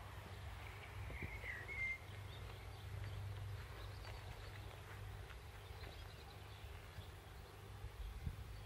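Quiet outdoor ambience with a low steady hum, a short warbling bird call about a second in, and a few faint taps.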